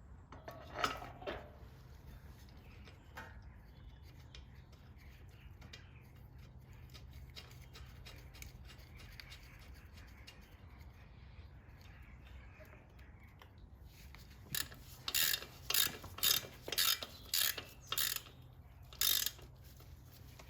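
Hand ratchet wrench being worked in a run of about nine quick strokes, roughly two a second, near the end, tightening the subframe mounting bolts. A short clatter about a second in.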